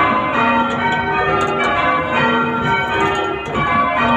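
A light ring of six church bells, tenor only 5 cwt, ringing rounds: the bells strike one after another in a steady repeating sequence, each note ringing on under the next.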